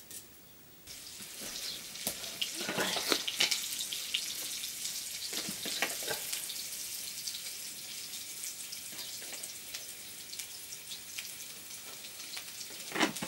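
Wood fire in a mud cooking stove, a steady hiss with scattered crackles, starting about a second in.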